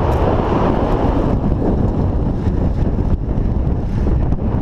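Wind buffeting the microphone of a camera carried on a moving bicycle: a loud, steady rumble.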